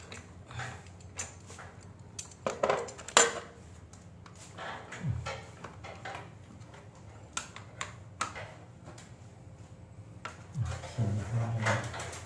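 Irregular clicks, taps and clatter of hand tools and small metal and plastic parts being handled while wiring a breaker panel, with a few louder knocks about three seconds in.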